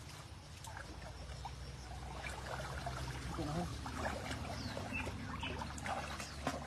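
Shallow stream water trickling and sloshing as a person wades in rubber boots and handles a plastic basket in the water, with scattered small splashes.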